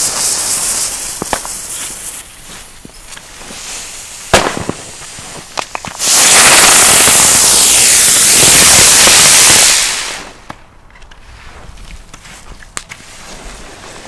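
Xplode Smoke Bird smoke firework going off: a hiss as the fuse catches, a single sharp pop about four seconds in, then a loud, steady rushing hiss of the burning charge for about four seconds before it dies away.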